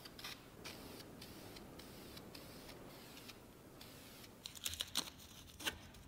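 Faint hiss of an aerosol spray-paint can spraying in short bursts, followed near the end by a few sharp clicks.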